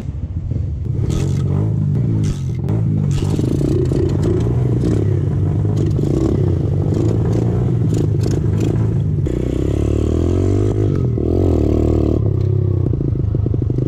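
Small single-cylinder pit bike engine running, then revved and ridden off, its pitch rising and falling a few times about two-thirds of the way through.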